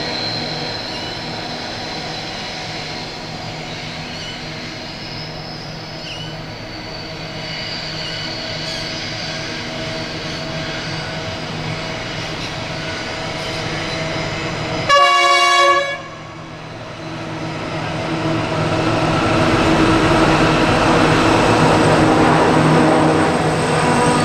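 Three diesel-electric freight locomotives, an NR class leading an 82 and an 81 class, working a long container train: a steady engine drone as they approach. About fifteen seconds in a locomotive horn sounds one short blast of about a second, then the container wagons roll past with a rising rumble of wheels on rail.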